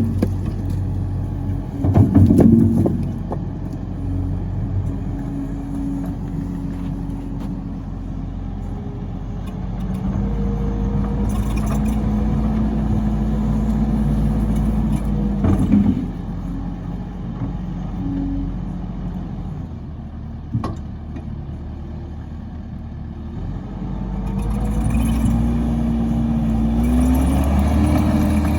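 An engine on log-splitting machinery runs throughout, its pitch rising and falling as the load changes. A few sharp knocks come through, the loudest about two seconds in and others near the middle.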